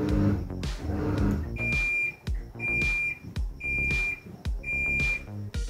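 Haier top-loading washing machine's end-of-cycle alert: four short high beeps about a second apart, signalling that the wash cycle has finished. Background music plays throughout.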